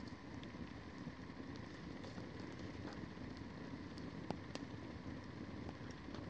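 Wood campfire burning with a steady faint hiss and scattered sharp crackles and pops.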